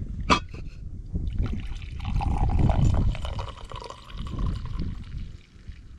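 A drink poured into a cup: a sharp clink just after the start, then a pouring stream whose pitch rises slightly as the cup fills, fading out after about four seconds.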